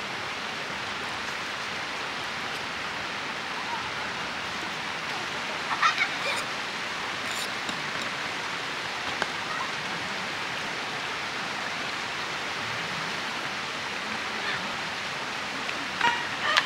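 Steady rushing background noise, with short knocks of a kitchen knife against a wooden cutting board while salmon is sliced, a cluster about six seconds in and another near the end.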